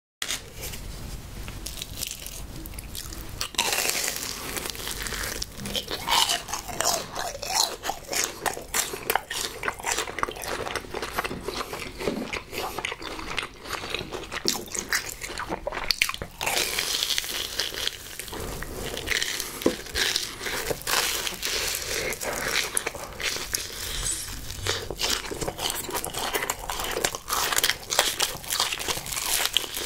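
Close-miked biting and chewing of crispy deep-fried, crumb-coated Korean hot dogs, with dense, irregular crunching and crackling throughout.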